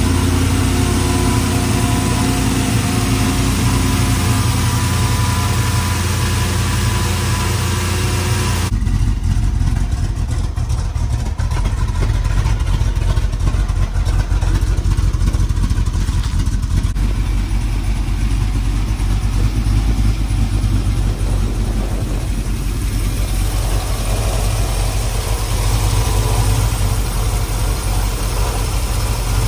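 A 5.3 LS V8 in a 1968 GMC Suburban running steadily. It is running smoothly now that a new cam sensor has been fitted. About nine seconds in, the sound changes abruptly to a lower, deeper tone.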